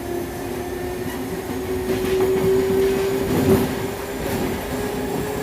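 Traction motors of a Mafersa/Hitachi Series 1700 electric train whining under way, the pitch rising slowly as it gathers speed, over rumble from the wheels and rails. A louder knock comes about three and a half seconds in.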